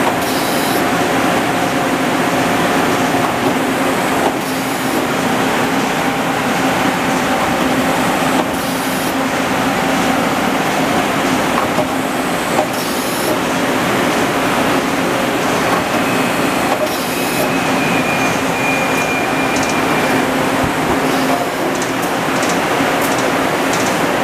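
Daewoo Lynx 210A CNC turning center running under power: a steady machine hum with a low whine, and a short hiss about every four seconds.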